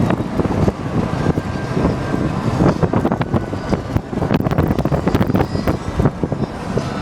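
Wind buffeting the microphone over steady vehicle noise, with frequent crackles.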